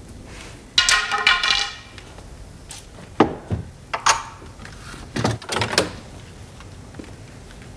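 Handling sounds of a coin and a sword: a loud ringing clatter about a second in, then a knock as a coin is set down on a hard surface, and clinks and knocks as a sword on its belt is lifted down.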